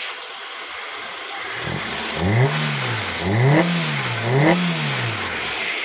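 Hyundai i10's four-cylinder Kappa petrol engine, just started on new spark plugs, running at idle and then revved three times in quick succession from about two seconds in. Each rev rises and falls back toward idle.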